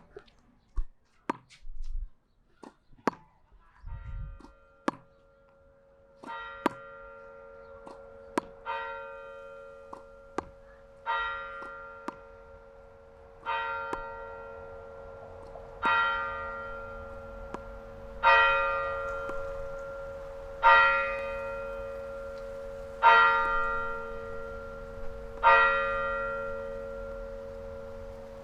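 A bell tolling steadily, struck nine times about every two and a half seconds, each strike ringing on into the next and growing louder through the sequence. It is preceded by a few sharp clicks or knocks.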